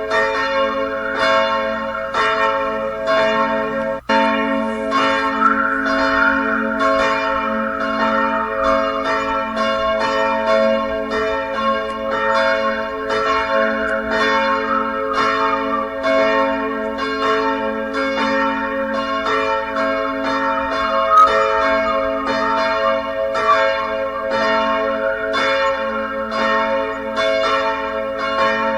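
Church bells ringing continuously, a fresh strike about every half second over the lingering ring of the earlier ones. The sound cuts out for an instant about four seconds in.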